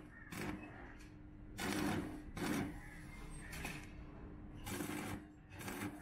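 Stick (arc) welding: a series of short crackling bursts, each about half a second, as the electrode tacks the wire mesh of a bird cage panel to its steel frame, with a steady low hum underneath.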